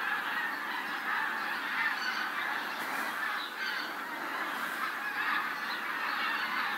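A large flock of migrating geese calling in flight overhead, many honks overlapping into a continuous clamour.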